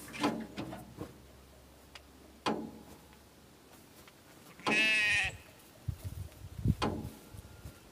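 A ewe gives a single bleat about five seconds in, lasting about half a second. Soft thumps of footsteps in grass follow as someone walks toward it.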